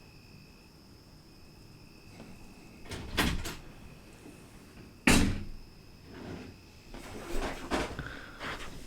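Sharp knocks and thumps on a hard surface: a short cluster about three seconds in, one loud sharp knock about five seconds in, then several lighter knocks and thuds.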